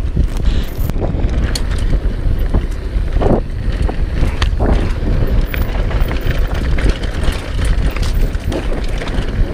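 Downhill mountain bike ridden fast over a dirt trail: wind buffeting the camera microphone in a heavy rumble, with the tyres running over the dirt and the bike rattling and knocking over bumps. Two louder scraping bursts come a little past three and four and a half seconds in.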